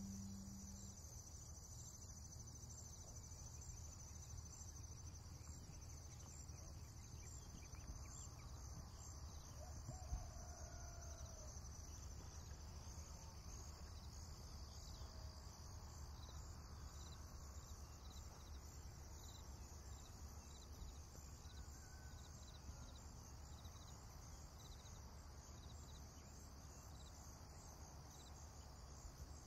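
Near silence: faint room tone with a low hum and a steady high-pitched pulsing hiss.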